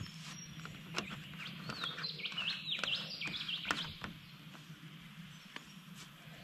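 Wild birds chirping and singing in a quick run of rising and falling calls, loudest about two to four seconds in, with a few sharp clicks as a plastic milk bottle is handled and its screw cap put on.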